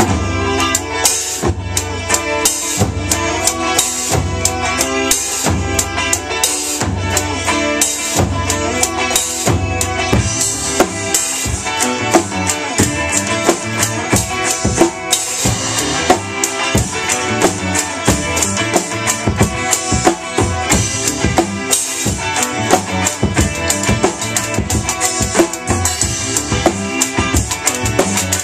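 Drum kit with Sabian cymbals played live along with a recorded rock song. A steady beat of kick drum, snare and cymbals sits over the band's track.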